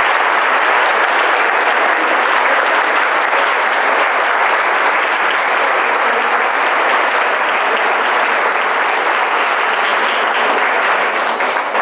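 Audience applauding steadily after a speech, dying away at the end.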